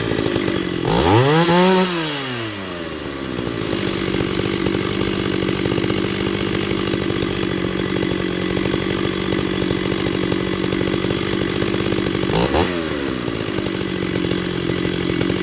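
Small two-stroke chainsaw idling steadily, with a quick blip of the throttle about a second in that rises and falls back to idle, and a shorter blip near the end.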